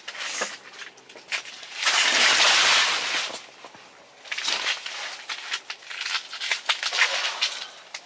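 Close rustling and crinkling of fabric and handling noise with scattered sharp clicks, loudest about two to three seconds in and again in a second spell toward the end.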